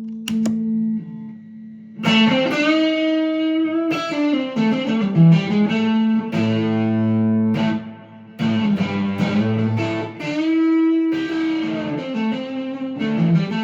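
Electric guitar played through an amp's clean channel. Chords and single notes are struck every second or two and left ringing, with some notes bending in pitch.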